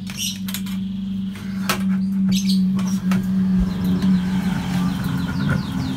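A steady low hum with scattered sharp clicks and knocks. From a little past the middle comes a quick run of high, falling chirps like a small bird's, several a second.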